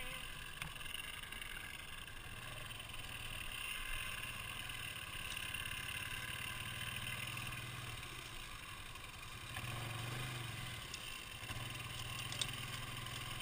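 ATV engine running steadily at low revs, rising briefly about ten seconds in.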